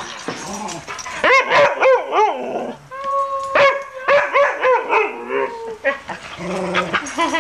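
Dog "singing": a string of howls that waver up and down in pitch, with one held note about three seconds in.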